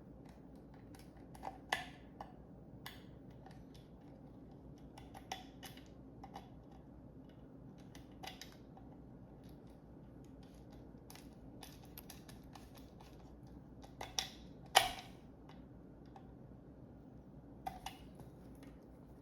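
Scattered light clicks and taps from a sewing machine knee speed controller being handled and put back together by hand, with a sharper knock about fifteen seconds in. A faint low hum sits underneath.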